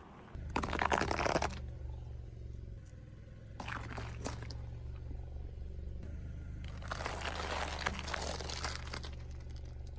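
A car's tyres crush crunchy objects in three bursts of crunching and crumpling: about half a second in, around four seconds in, and a longer one from about seven to nine seconds. Under them runs the steady low hum of the car's engine.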